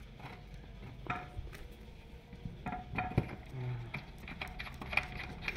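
Scattered light metallic clicks and clinks as a loosened muffler mounting bolt is turned out by hand on a scooter exhaust, with a few brief ringing clinks about a second in and around three seconds in.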